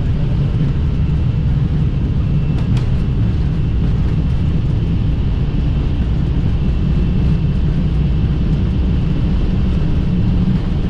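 Steady cockpit noise of an Airbus A320: an even low rumble with a faint steady high tone over it, and one brief click about three seconds in.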